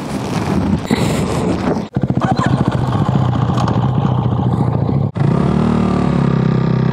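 Motorcycle engines running as the bikes pull away and ride on, with a rapid pulsing engine beat. The sound changes abruptly twice and settles into a steady engine note in the last couple of seconds.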